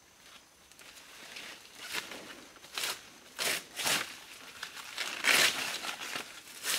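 Dry banana leaves being pulled, torn and crumpled by hand: a series of short crisp rustles and rips, the loudest about five seconds in.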